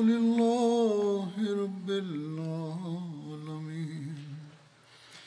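A man's voice reciting Arabic in a slow, melodic chant, the recitation that opens the sermon. It is one long drawn-out phrase that drops to a lower pitch about two seconds in and trails off near the end.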